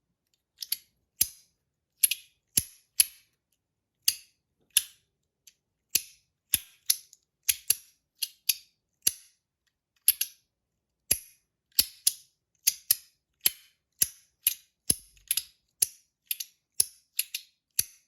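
Titanium magnetic slider fidget coin (Compoform Astronaut coin) being slid back and forth, its halves snapping into place on the magnets with sharp clicks. The clicks come irregularly at about two a second, quickening to about three a second in the second half.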